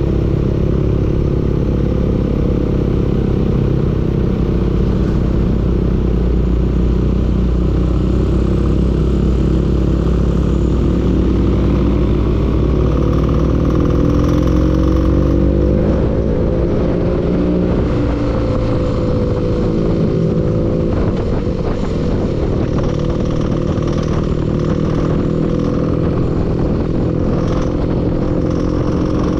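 An engine running steadily, in a video its owner posted to show it knocking. About halfway through it speeds up slowly and then settles back down.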